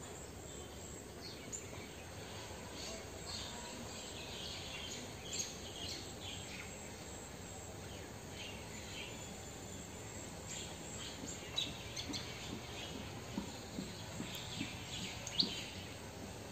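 Rural outdoor ambience: small birds chirping in short, scattered calls over a steady background hiss, with a few louder chirps.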